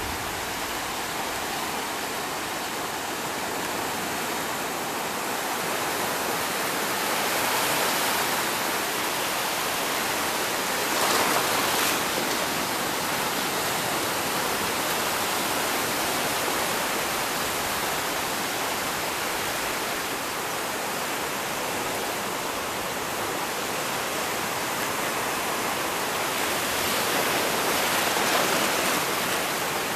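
Sea surf washing over a rocky reef shelf: a steady rush of breaking water that swells a few times as waves come in.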